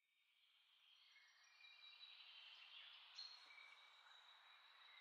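Near silence: a faint steady hiss with a few faint high steady tones.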